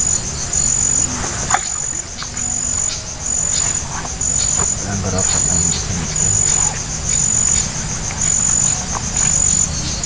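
Insects chirping in a steady high-pitched pulse, about one chirp a second, each chirp lasting around half a second.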